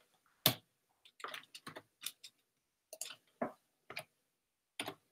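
Irregular clicks and taps on a computer keyboard and mouse, about a dozen short sharp clicks, some in quick little runs.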